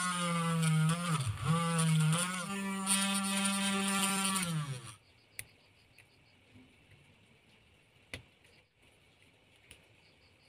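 Pen-style mini rotary drill with a micro drill bit whirring steadily as it bores into a small PVC plastic part, its pitch dipping briefly under load about a second in and again at two seconds, then stopping about five seconds in. A few faint clicks follow as a hobby knife trims the plastic.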